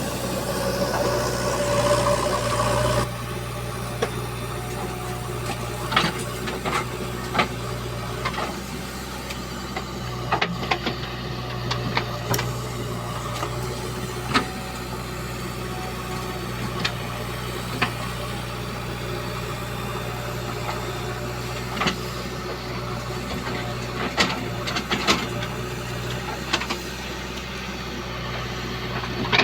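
Diesel machinery engine running steadily, with sharp clanks and knocks scattered throughout. It is louder, with a higher tone, for the first three seconds, then settles to a lower, steady running.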